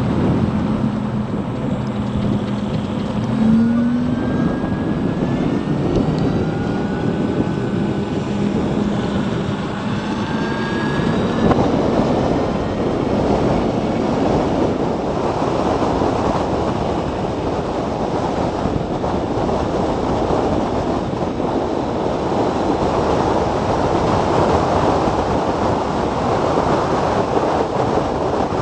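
Zero DSR electric motorcycle on the move: a thin motor whine rises in pitch over the first dozen seconds as it gathers speed, then gives way to steady wind and road noise at speed.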